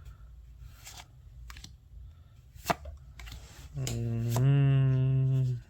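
Light clicks and ticks of Pokémon trading cards being handled and flipped through, then near the end a person's long drawn-out vocal sound at a steady pitch, held for about two seconds.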